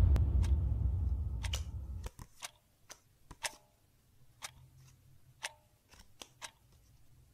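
Playing cards being dealt, each card landing on the table with a sharp click, irregularly, about one or two a second. A low rumble fades out over the first two seconds.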